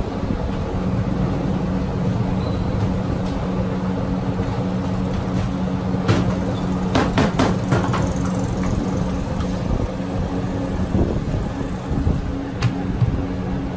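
Steady low mechanical hum throughout, with a quick run of sharp clacks about six to eight seconds in: a wooden rolling pin knocking on a steel worktop while flatbread dough is rolled out.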